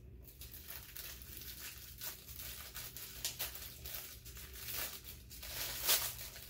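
Sparkly gift-wrap paper crinkling and tearing as a small package is unwrapped by hand, in many short crackles, with a louder rip near the end.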